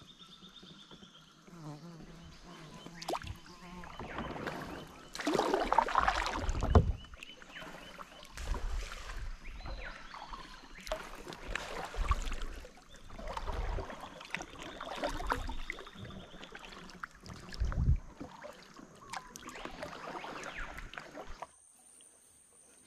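Kayak paddle strokes: the blade dipping and pulling through the water with a splash and swirl every one and a half to two seconds, stopping near the end.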